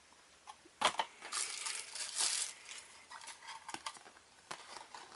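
Retail box being opened and its packaging handled: a sharp snap about a second in, then a stretch of crinkling and rustling, followed by scattered small clicks and taps.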